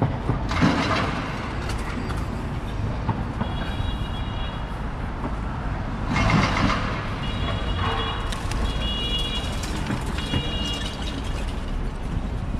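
Steady street traffic, with two vehicles passing close, about half a second in and about six seconds in. A high electronic beeping tone sounds in short repeated bursts from about three and a half seconds in.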